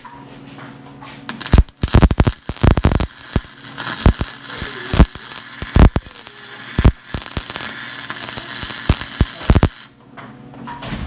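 Flux-core wire welder arc crackling and popping with spatter as a bead is run, starting about a second and a half in and cutting off near the end. A steady low electrical hum runs underneath.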